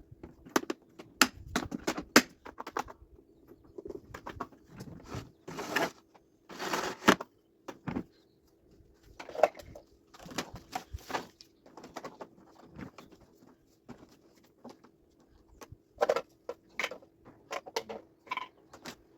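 Irregular clicks, knocks and rustles of hard plastic wet/dry vacuum parts being handled and fitted together, over a faint steady hum. The vacuum's motor is not running.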